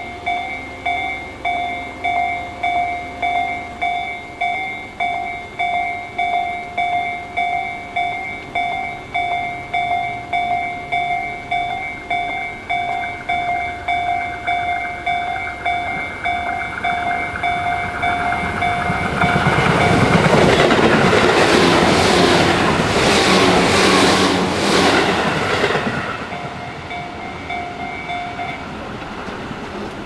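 Japanese level-crossing electronic warning bell, Tobu 'sound C' in its slow-tempo version, ringing steadily at about one and a half strikes a second. A Tobu 8000-series train builds up and passes over the crossing about two-thirds of the way in, drowning the bell. The bell stops near the end.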